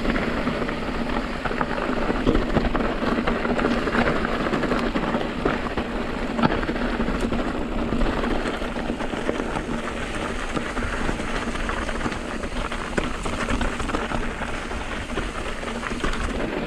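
Mountain bike rolling over a loose, rocky trail: tyres crunching on gravel and rock, with many small knocks and clatters from the bike.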